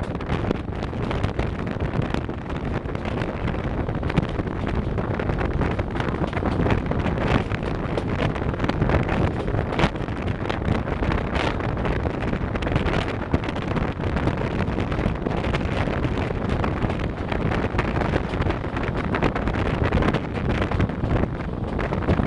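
Wind buffeting the microphone over a steady low rumble of a running vehicle.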